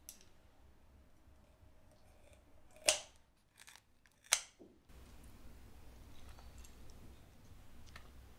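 Kitchen scissors snipping through the wing tips of a raw chicken: two sharp cuts about a second and a half apart.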